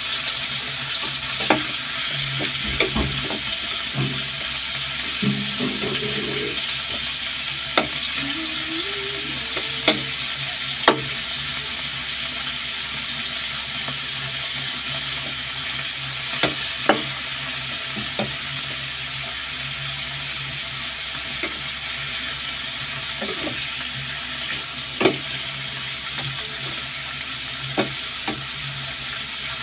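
Chicken pieces frying in oil in a pan, browning with a steady sizzling hiss. Now and then a metal spatula clicks and scrapes against the pan as the pieces are stirred.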